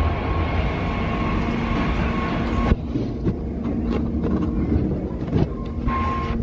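Loud, steady low rumble of city street noise with a few held tones. About three seconds in it drops away, leaving scattered clicks and knocks as a glass shop door is pushed open.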